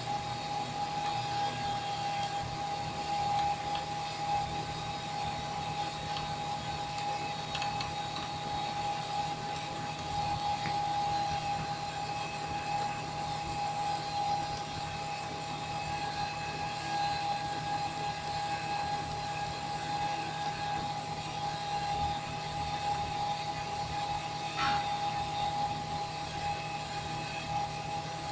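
Steady mechanical hum with a constant high-pitched whine, unchanging throughout, and a few faint clicks from the GPS unit's knobs and buttons being worked.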